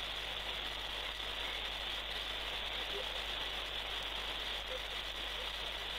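Steady hiss of a telephone line with nobody talking, over a low steady hum.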